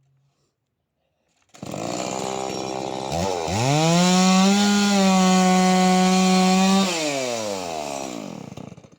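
Stihl MS 180 two-stroke chainsaw comes in suddenly about one and a half seconds in at low revs, then revs up sharply and runs steady at high revs making a cut in a log. Near the end it drops back down and cuts off.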